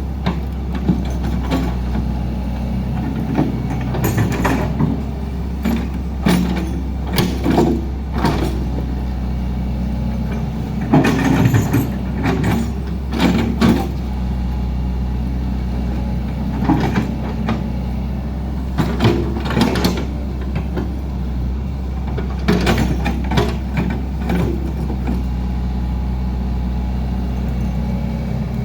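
Heavy diesel engine of road-works machinery running steadily, with frequent short metallic clanks and knocks over it.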